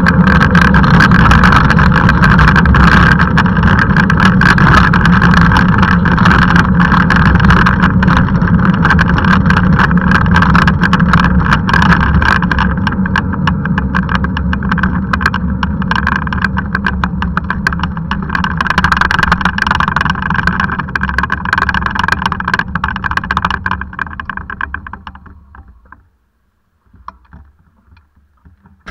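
Steady wind and tyre noise on a handcycle-mounted camera while riding along a tarmac road, with a scatter of small clicks and rattles; it dies away about 25 seconds in as the handcycle slows and stops, leaving near silence.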